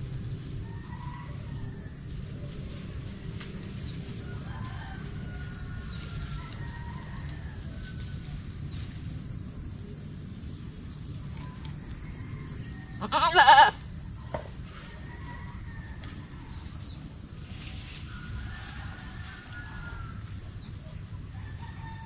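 A goat bleats once, a short wavering call about thirteen seconds in, over a steady high-pitched hiss.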